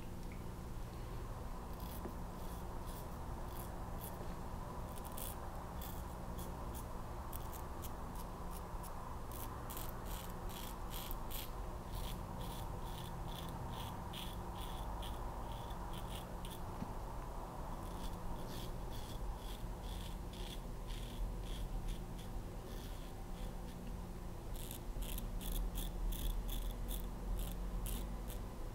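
Soluna safety razor scraping through lathered stubble in quick, short repeated strokes, in runs broken by a couple of brief pauses.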